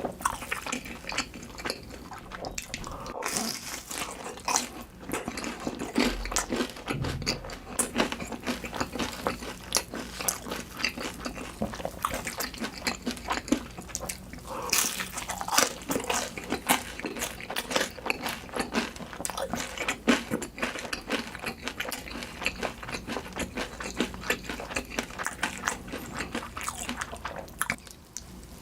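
Close-miked eating: biting and wet chewing, with a steady run of small clicks, smacks and crunches.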